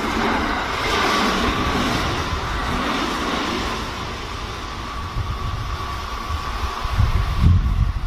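Kintetsu electric train running past and drawing away: wheels on the rails with a faint steady whine, fading over several seconds. Wind gusts on the microphone near the end.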